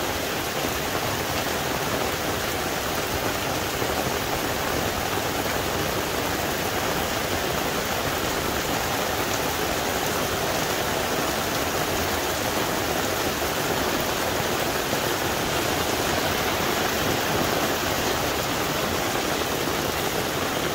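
Heavy rain pouring down in a steady downpour, an even hiss with no let-up.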